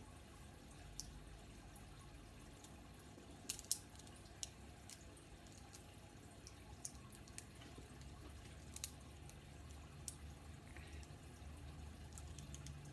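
Faint, scattered sharp clicks of a plastic Bakugan Battle Planet figure being handled and its parts pressed and snapped closed into ball form, with a couple of louder clicks about three and a half seconds in. A low steady hum runs underneath.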